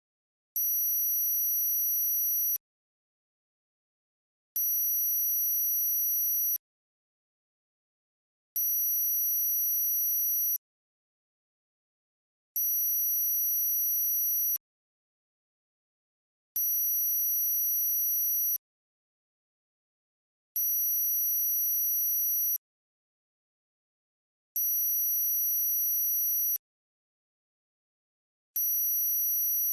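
Synthesized tinnitus-masking tone: a very high-pitched steady electronic tone with a second tone an octave below it. It pulses on for about two seconds and off for about two seconds, eight times in a row.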